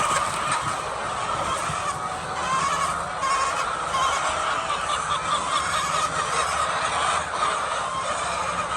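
A flock of chickens calling steadily, many clucks and squawks overlapping into one continuous din.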